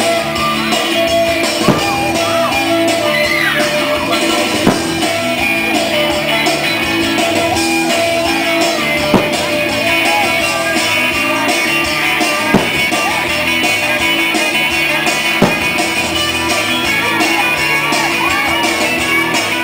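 Rock song with guitar and singing played loudly, with five brief sharp bangs scattered through it.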